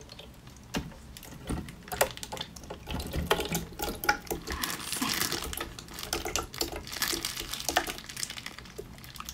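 Close-up eating sounds from pickled mud snails: an irregular run of small sharp clicks and wet smacking, busiest in the middle.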